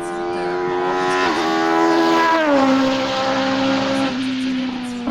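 Race car engine running hard up the hill as it passes, its pitch climbing with a brief dip about a second in. Near its loudest, about two and a half seconds in, the pitch drops as it goes by, then it holds a lower, steady note moving away.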